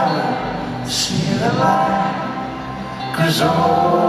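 Live folk-rock band playing in an arena: long sung notes in harmony, with new sung lines beginning about a second in and again about three seconds in.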